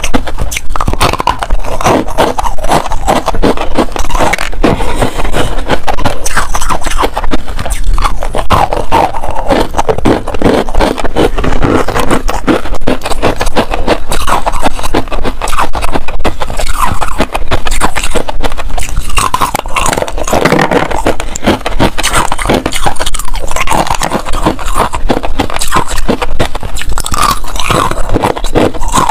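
Pink-tinted freezer frost and hard ice being bitten and chewed, a dense, continuous run of loud crunches and crackles.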